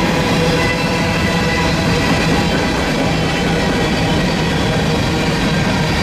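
Loaded freight train's covered hopper cars rolling past close by: a steady rumble of steel wheels on rail, with several steady ringing tones held above it.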